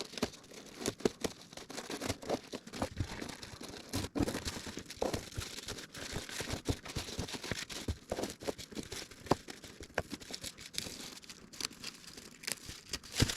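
Vinyl sheeting crinkling and rustling as it is handled, with many irregular small clicks and crackles.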